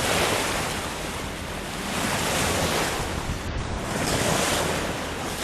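Wind buffeting the microphone over rushing water, swelling and easing every couple of seconds.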